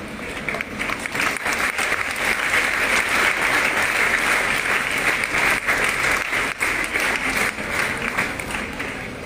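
Audience clapping, building about a second in to steady applause and thinning out near the end.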